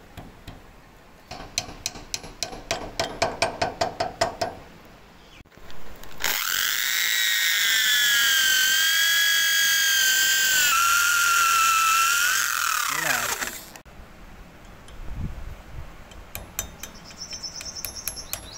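Rapid hammer taps driving a wooden wedge into the spade's steel handle socket. Then an electric drill bores through the steel socket: the loudest sound, a steady high whine that winds down in pitch as the drill stops. A few lighter taps follow near the end.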